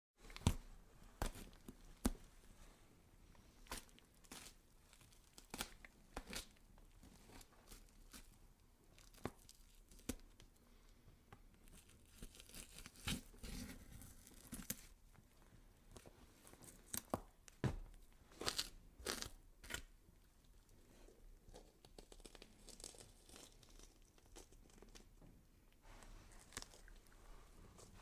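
Gore sound effect of flesh being scraped and cut: wet tearing and crunching in irregular sharp strokes, with denser stretches of scraping about halfway through and again about two-thirds of the way in.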